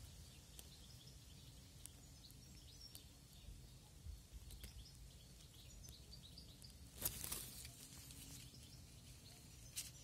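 Faint outdoor ambience: a low steady rumble with scattered distant bird chirps, and a brief rustling noise about seven seconds in.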